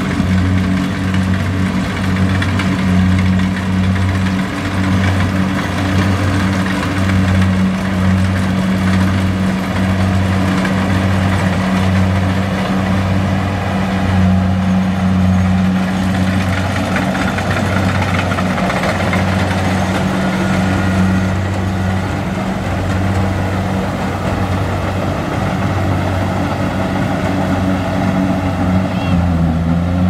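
Kubota DC-70Plus combine harvester running steadily while cutting rice: an even, low diesel engine drone with a regular pulse, over the broad rush of its cutting and threshing machinery.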